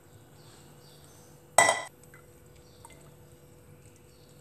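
A single sharp metallic clink with a short ring about one and a half seconds in: a utensil striking the stainless-steel mesh strainer or its bowl while soaked rose petals are pressed to drain the rose water. A few faint ticks and scrapes of the pressing come before and after it.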